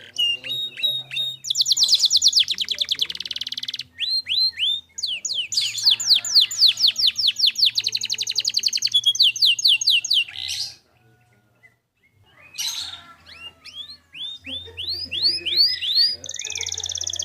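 Domestic canary singing vigorously in fast, high trills of rapidly repeated whistled notes. The song stops for about a second and a half roughly two-thirds of the way through, then starts again.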